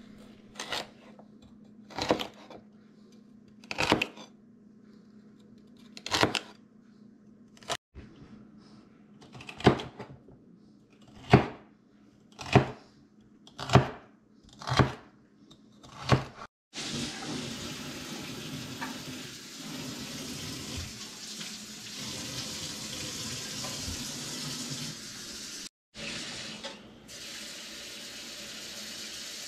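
Chef's knife chopping celery on a plastic cutting board, about a dozen single chops one to two seconds apart. About halfway through it gives way to a kitchen faucet running steadily into a saucepan in the sink.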